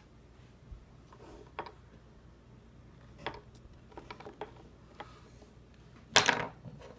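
3D-printed plastic figurines being handled on a wooden table: scattered light clicks and taps, with one louder knock about six seconds in.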